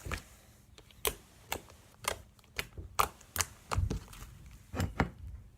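Slime being squeezed and pressed in the hands, giving a string of sharp clicks and pops, about ten of them at an uneven pace.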